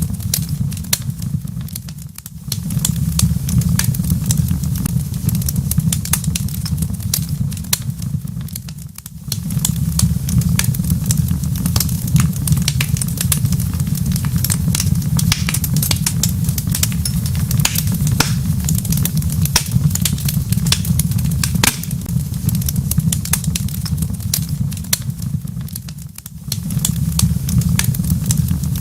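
Wood fire crackling in a fireplace: dense, irregular sharp pops and snaps over a steady low rumble. It briefly fades out and back three times.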